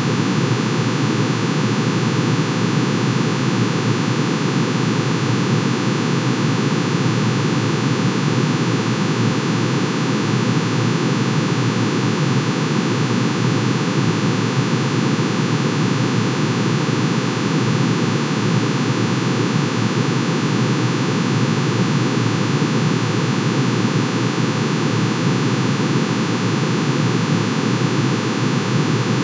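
Synthesized sound of manganese's atomic emission spectrum: many sine tones, one for each spectral line pitch-shifted into hearing range, summed into a steady, unchanging noise-like drone.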